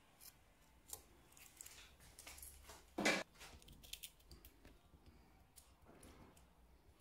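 Metal kitchen tongs and a wire skimmer clicking and scraping against a plate of chicken in sauce, with a short clatter about three seconds in as the loudest sound. Near the end green olives drop from the skimmer onto the plate with soft taps.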